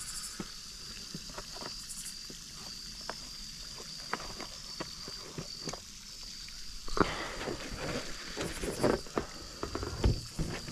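Scattered clicks and rustles of close handling in the grass, becoming louder and busier about seven seconds in, over a steady high insect trill.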